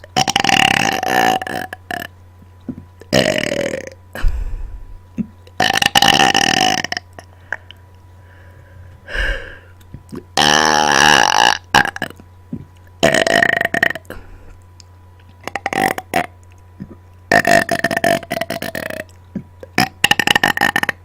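A person burping on command, one belch after another: about nine separate burps, most lasting around a second, with short pauses between them.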